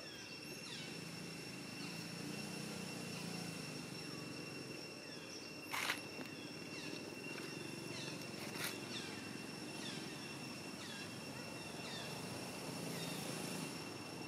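A steady, high-pitched insect drone held on two pitches, with short falling chirps repeating about once a second. Two sharp crackles come about six seconds in and again near nine seconds.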